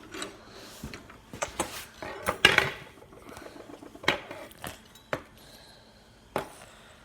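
Metal hand tools clinking and knocking against each other and the toolbox as they are handled and put away: a string of separate short clicks, with a louder clatter about two and a half seconds in.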